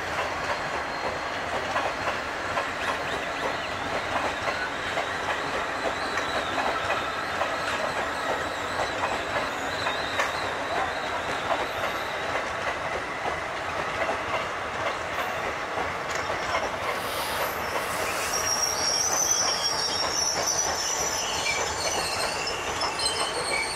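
Passenger coaches of the Mewar Superfast Express rolling past at speed, their wheels rumbling and clattering on the rails with a steady high whine of wheel on rail. Sharper, higher squeals join in about three-quarters of the way through.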